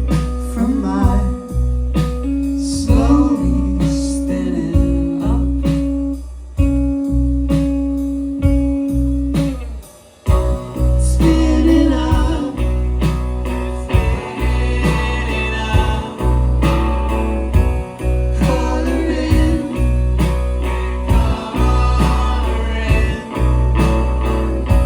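Live indie rock band playing: drums keep a steady beat under a heavy bass line, with guitar and singing. The band drops out briefly about ten seconds in, then comes back in fuller.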